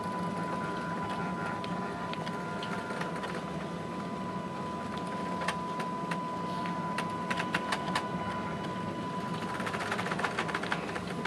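Ship's bridge ambience underway: a steady low hum with a constant high whine, and scattered light clicks and rattles that come in clusters around the middle and toward the end.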